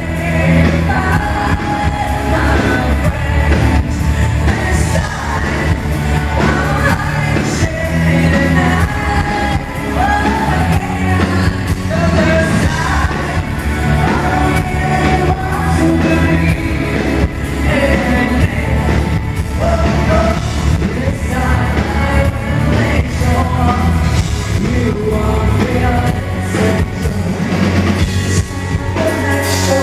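Live rock band playing: a woman singing lead into a microphone over electric guitars, bass guitar and a drum kit, loud and continuous.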